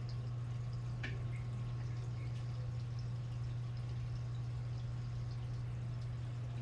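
Steady low hum with a few faint scattered clicks, one sharper click about a second in.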